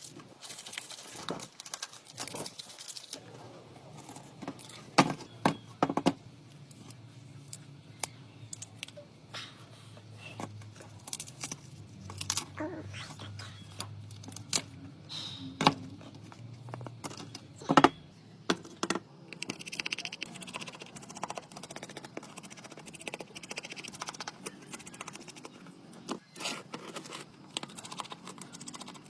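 Scattered clicks, taps and scrapes of small tools and parts being handled while an old mobile phone is worked on, with a stretch of scratchy rubbing about twenty seconds in.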